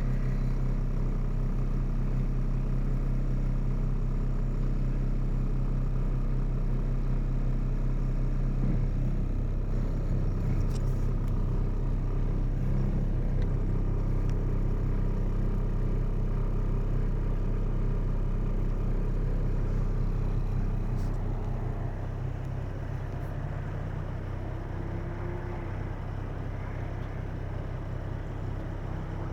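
A steady low mechanical drone, made of several fixed low tones, which drops in level and shifts its pitch about two-thirds of the way through.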